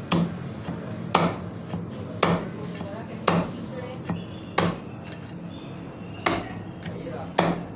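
Butcher's cleaver chopping through a rack of goat ribs on a wooden block, cutting it into rib chops: seven sharp, heavy chops about a second apart.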